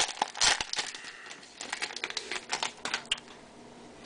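Plastic trading-card pack wrapper crinkling and tearing as it is opened by hand: a run of sharp crackles that stops about three seconds in.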